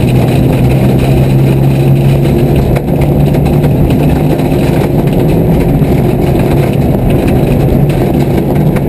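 Car engine running at fairly steady revs while driving, with heavy road and tyre rumble, heard from inside the cabin.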